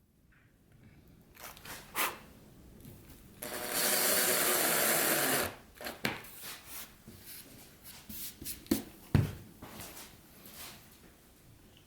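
Woodworking sounds: a tool gives about two seconds of steady noise, then pieces of wood are knocked and handled, with one sharp knock toward the end.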